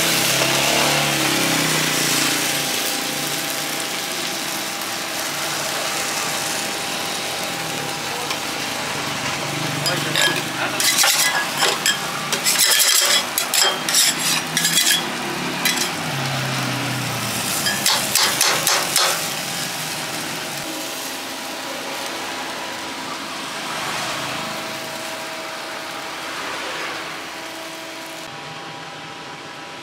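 Food frying in a pan with a steady sizzle. About a third of the way through comes a run of sharp clicks and clatters that lasts several seconds.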